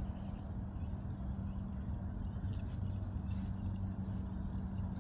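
Steady low hum of vehicle engines from road traffic, holding one even drone with no rise or fall.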